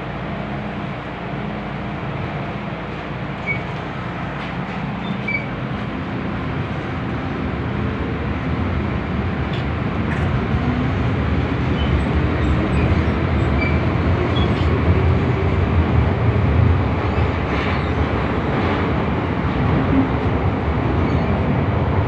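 Interior noise of a moving MTR metro car: a steady rumble and rush of wheels and motors. It grows louder from about a third of the way in, with a faint rising whine in the middle.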